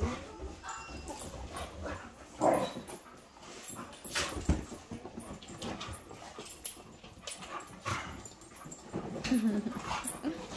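Several dogs playing together, with short yips and whimpers, an occasional bark and scattered knocks. The loudest sound comes about two and a half seconds in.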